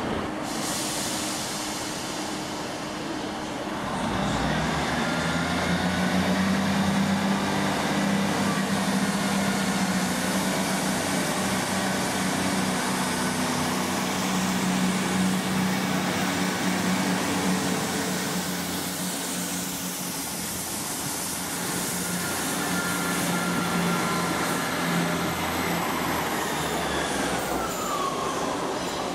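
East Midlands Trains Class 158 diesel multiple unit moving through the station: a steady diesel engine drone, stronger from about four seconds in, over the rumble of wheels on rail. A falling squeal near the end.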